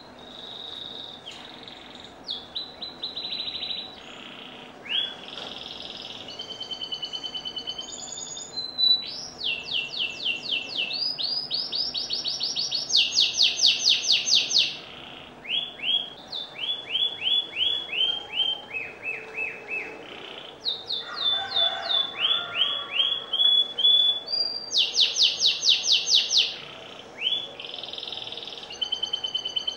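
Domestic canary singing a long, varied song of phrases built from rapidly repeated notes, changing every second or two. Some phrases are strings of notes sliding down in pitch, and the loudest are fast high trills about halfway through and again near the end.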